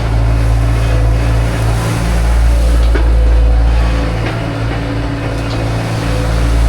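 Manitou telehandler's engine running steadily, its level rising and easing slightly.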